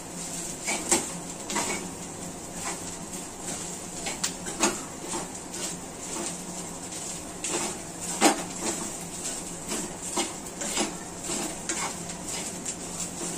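A metal spoon scraping and knocking irregularly against a frying pan while grated coconut and onion are stirred and dry-roasted. One sharper knock comes about eight seconds in, over a low steady hum.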